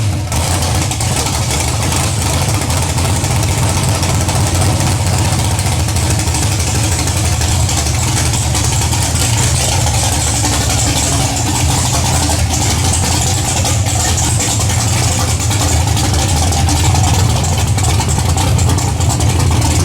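Drag car's engine running at a steady idle through open fender-well headers, loud and even, just after being started.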